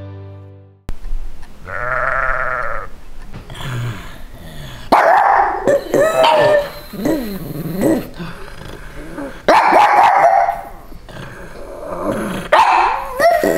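Sheep bleating, answered by a pug barking and howling back at it, the bleats and the dog's calls alternating several times.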